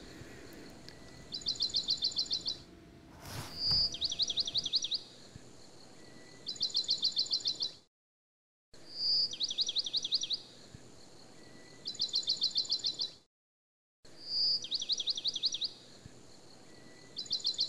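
A small songbird singing the same phrase over and over, about every two and a half seconds: a short high whistle, then a quick trill of about a dozen notes lasting about a second. A soft knock comes about three seconds in, and the sound cuts out entirely for about a second twice.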